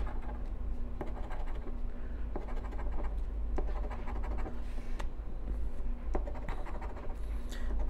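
A round scratcher disc rubbing the latex coating off a lottery scratch-off ticket: continuous scratching with small clicks as the disc's edge catches, over a steady low hum.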